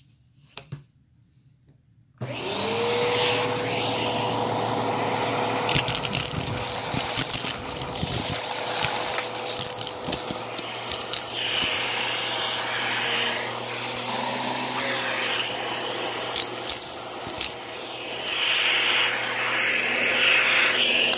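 Vacuum cleaner switched on about two seconds in and running steadily with a constant whine, sucking loose coins off a carpet through a brush attachment. Scattered sharp clicks and rattles come from the coins being drawn into the tool.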